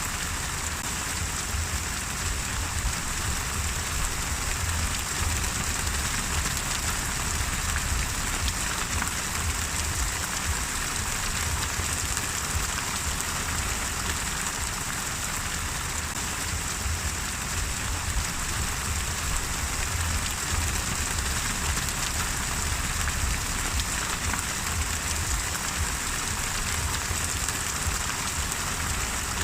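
Steady rain falling on a surface, an even hiss of many drops with a low rumble beneath.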